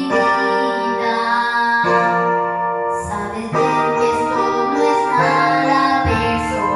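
A boy singing a Spanish-language 1990s romantic ballad into a handheld microphone over a backing track led by piano or keyboard, in phrases of long held notes.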